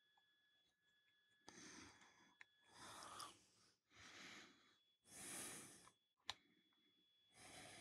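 Near silence with a person's faint breathing, five soft breaths about a second apart, and a single small click about six seconds in.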